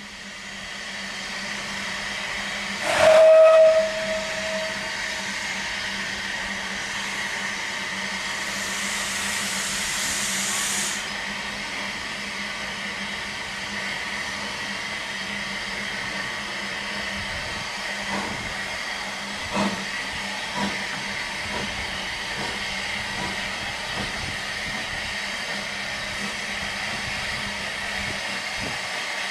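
Manning Wardle 2-6-2T narrow-gauge steam locomotive giving one short whistle blast about three seconds in, then a few seconds of steam hissing as it moves slowly with its train. A few single clanks follow near the middle.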